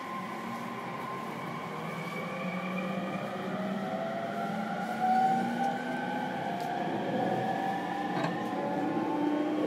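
Ride-along sound inside an E231-series electric train car (MoHa E231-1052): the VVVF inverter and traction motors whine in several tones that rise steadily in pitch as the train accelerates, over the rumble of wheels on rail. A single knock about five seconds in.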